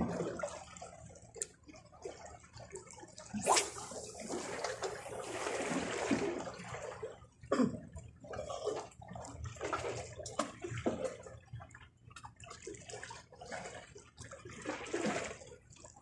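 Small sea waves washing and sloshing against shoreline rocks in uneven surges; the biggest surge comes about three and a half seconds in and lasts a few seconds.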